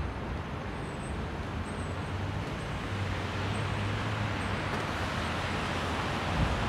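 Steady city traffic noise, with a low engine hum that grows louder for a couple of seconds midway.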